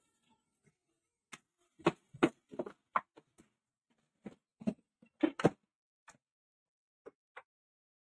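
Hard plastic knocks and clicks from the blue top cover of a Toshiba 1600 W canister vacuum cleaner as it is handled and pressed onto the body to close the housing. There are about a dozen short, separate strokes, the loudest a quick pair a little past halfway.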